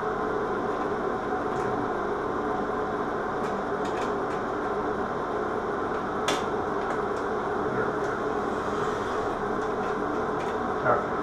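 Steady ventilation fan hum, even in level throughout. A few faint clicks sound over it, one sharper about six seconds in, as the metal light fixture is handled.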